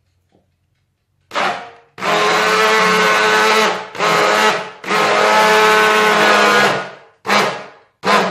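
Hand-held immersion blender running in bursts in a bowl of semolina baghrir batter, blending it smooth. It is switched on and off about six times: two longer runs of about two seconds, with short pulses between and after, each a steady motor whine.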